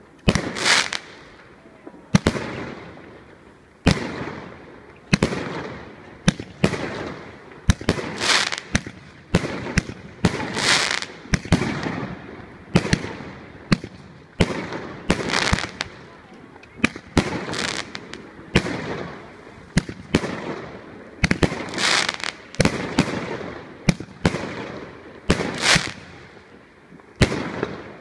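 A Lucky Fireworks 724-shot mixed-calibre (30/38/50 mm) firework cake firing: sharp bangs in close succession, about one or two a second, each trailing off briefly.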